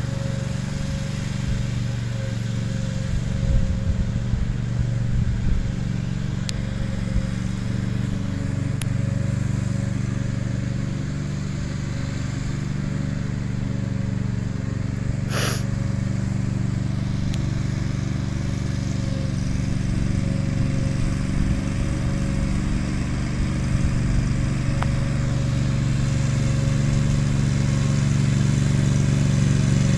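Bad Boy zero-turn mower engine running at a steady speed as it drives across the lawn towing a sprayer cart. It grows gradually louder as the mower comes closer near the end.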